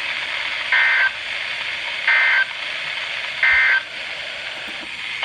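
Emergency Alert System SAME data bursts: three short two-tone bursts about a second apart, over steady hiss. This is the end-of-message code that closes a severe thunderstorm warning.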